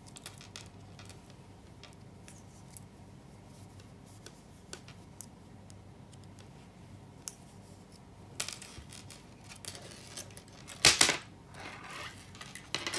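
Metal circular knitting needles clicking lightly and scraping against each other and the yarn as stitches are worked, with a louder scrape and rustle near the end as the needle and cable are drawn through the stitches.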